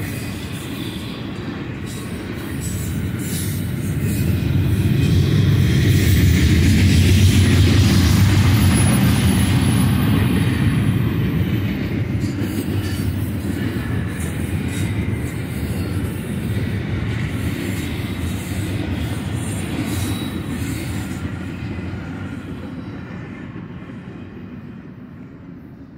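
Double-stack container train rolling past, its steel wheels rumbling on the rails in a steady wash of noise. The sound swells about six seconds in, then fades away as the end of the train passes and recedes.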